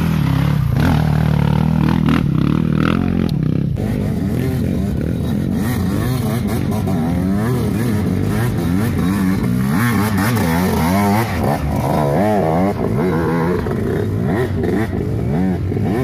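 Trail motorcycle engine running, its revs rising and falling again and again, more so in the second half.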